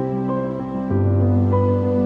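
Background music: slow, soft held chords, with the bass note changing about a second in.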